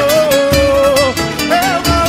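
Live pagode band music: a held melodic lead line with small pitch bends over guitar and low drum beats, in a break between sung lines.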